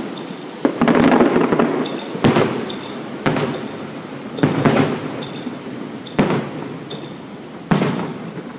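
Fireworks going off: about eight sharp bangs spaced roughly one to one and a half seconds apart, each trailing off in crackle and echo.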